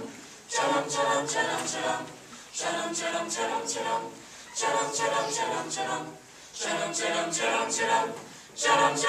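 Mixed-voice a cappella group singing in close chords, in phrases of about two seconds with short breaths between them.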